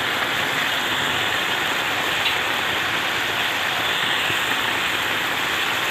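Steady hissing rush from a pan of potatoes with moringa stalks and flowers simmering on the stove.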